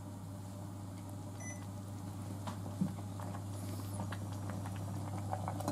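Induction cooktop humming steadily as it heats a saucepan of water, onions and beef. Faint ticks from the pot start about halfway through and come more often toward the end as the water warms.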